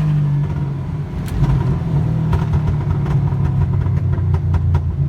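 Subaru Impreza WRX STI's turbocharged boxer engine running while driving, heard from inside the cabin. Its low drone is steady at first, goes uneven from about a second in until near the end, and carries a scatter of short sharp clicks.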